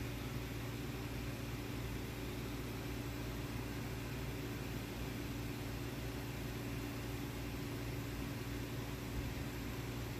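Steady low machine hum with an even hiss, unchanging throughout; no distinct knocks or clicks.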